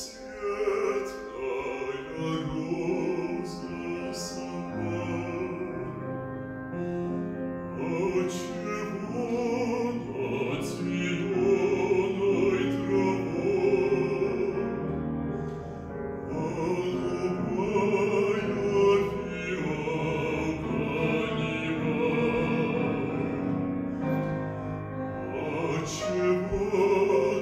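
A male classical singer singing in operatic style with long, wavering held notes, accompanied by a grand piano.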